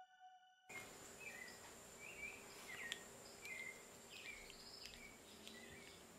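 Faint background hiss with many short, high chirps, starting under a second in, and a few soft clicks.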